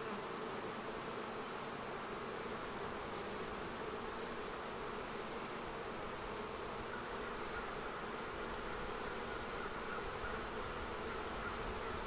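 Honeybees buzzing steadily around an open hive as its frames are lifted out: the continuous hum of the colony.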